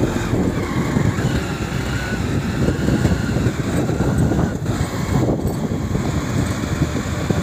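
A road vehicle on the move: steady running and road noise mixed with wind buffeting the microphone.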